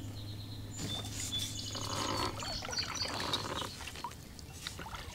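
Water pouring and trickling off a kayak paddle during a stroke, for about three seconds from a second in. Birds chirp faintly in the background.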